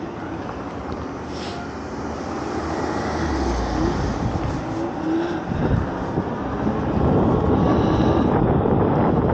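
Wind buffeting the microphone, with tyre noise, as an e-bike picks up speed under throttle; the rush gets louder from about midway.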